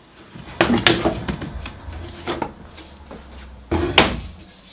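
Wooden boards being handled and set down on a workbench: a series of sharp wooden knocks and clatters, loudest about a second in and again near the end.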